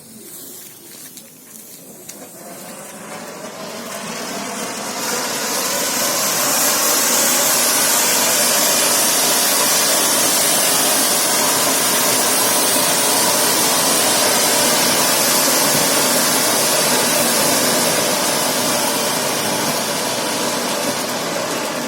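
Homemade white flowerpot firework (anar) burning: a loud, steady hiss of spraying sparks. It builds over the first few seconds, holds, and begins to die down near the end.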